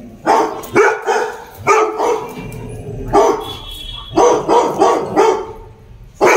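Golden retriever barking: a run of loud single barks with uneven pauses between them.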